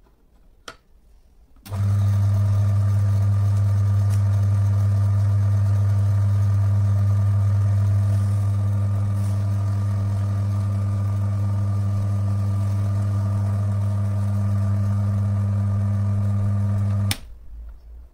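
Electric motor of a Timken-style lubricity tester running steadily with a low hum, spinning the brass test roller to mix the oil sample in its cup. It starts about two seconds in and stops abruptly with a click near the end.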